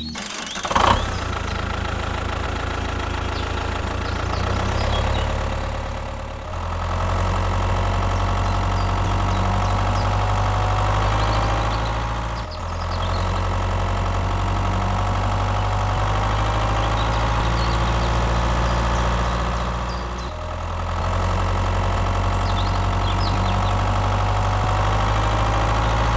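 An engine running steadily at idle, a low, even hum that dips briefly about 6, 12 and 20 seconds in.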